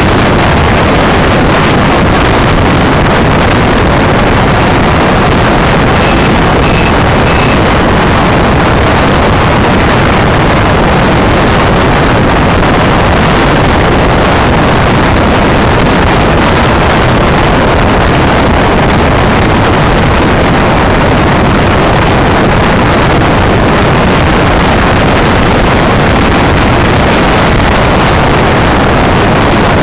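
Loud, steady rushing of wind on the microphone and tyres rolling on asphalt, heard onboard a low open-wheeled Greenpower electric race car running at speed.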